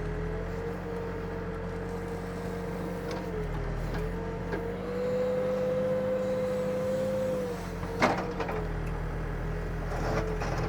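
Backhoe's diesel engine and hydraulics running steadily while digging. The pitch rises slightly and the sound grows louder for a few seconds in the middle as the machine works under load. A single sharp knock comes about eight seconds in.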